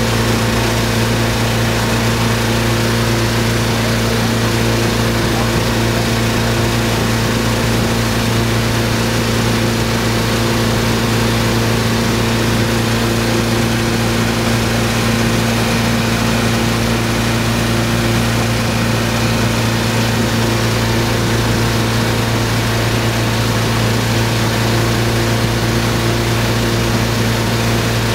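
Tow boat's engine running at a steady speed, a constant hum heard from aboard the boat, with a steady rushing of wake and wind over it.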